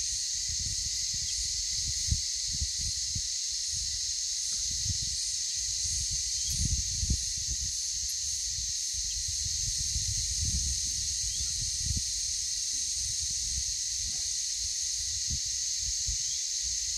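Steady high-pitched drone of insects in the surrounding trees, with a faint pulsing above it. Wind buffets the microphone in low gusts, strongest about two seconds in and around seven seconds.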